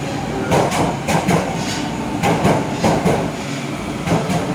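Footsteps knocking on a tiled underground metro platform, roughly two a second and uneven, over the steady hum of a stopped subway train standing with its doors open.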